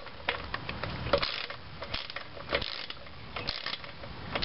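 Ratchet wrench with a 10 mm socket clicking as it loosens the nuts on a lawnmower's recoil starter cover, in short runs of clicks about once a second.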